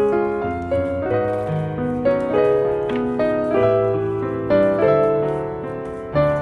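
Background instrumental music: a slow melody of held notes over sustained bass notes, a new note coming about every half second.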